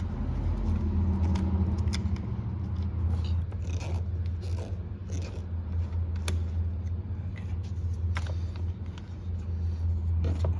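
Phillips screwdriver working screws loose under a car dashboard, with scattered small clicks and scrapes of metal and plastic, over a steady low hum.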